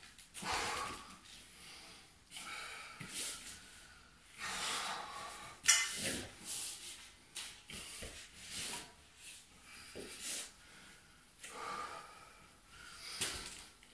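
A man breathing hard from the exertion of a core workout, with a string of heavy exhales and snorts every second or so. There is one sharp knock about halfway through.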